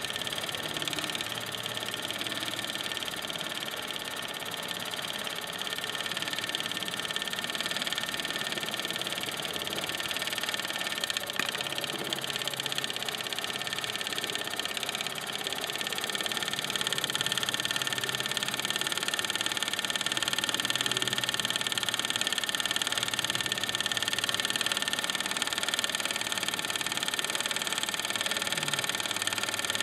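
1929 Meccano vertical-boiler model steam engine running steadily, belt-driving a Mamod WS1 workshop set: a continuous hiss with a mechanical running sound, a little louder from about halfway through.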